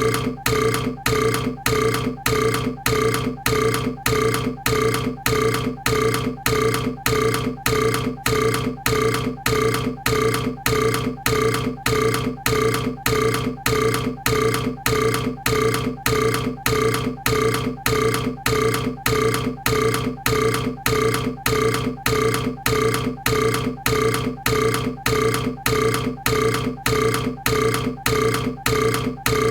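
A short, pitched human burp repeated over and over at an even pace, about two a second, each one identical: a single burp looped.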